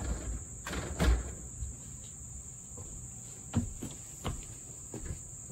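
Insects chirring steadily at a high pitch, with a few dull knocks and thumps from a person handling the vinyl porch railing and stepping on the porch deck. The loudest knock comes about a second in, and lighter ones follow near the end.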